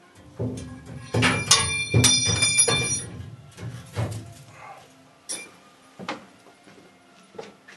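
Combustible material tipped from a bag into a hot ceramic reduction chamber: a loud rustling, crackling rush with some high ringing, lasting about two and a half seconds, then a few scattered knocks and crackles.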